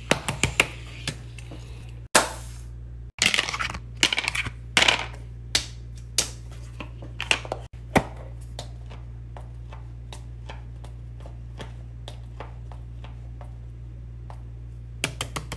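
Fidget toys being handled: a quick series of sharp clicks, clacks and taps of small hard objects, thick in the first half, then scattered ticks, and a short burst of clicks near the end, over a steady low hum.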